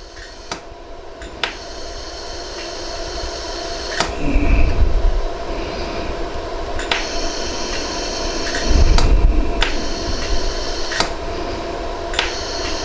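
Jewelry laser welder firing single pulses, each a sharp snap, roughly one every second or two, as white gold tips are welded onto a ring's prongs. A steady machine hum runs underneath, and there are two brief low rumbles about four and nine seconds in.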